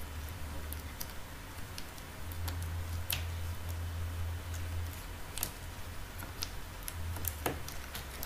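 Scattered small clicks and taps of Huawei Ascend G510 smartphone parts being handled and pressed together by gloved hands during reassembly, over a low steady hum.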